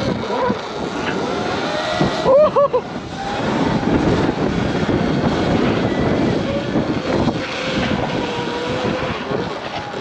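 Wind buffeting the microphone and road noise while riding a Sur-Ron electric dirt bike, with a faint whine that wavers in pitch. A brief, loud warbling sound rises and falls three times about two and a half seconds in.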